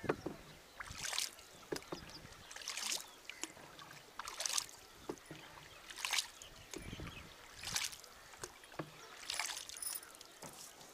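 Single-bladed wooden paddle stroking through lake water from a small rowboat, a splash and swirl about every second and a half, six strokes in all. A sharp knock right at the start.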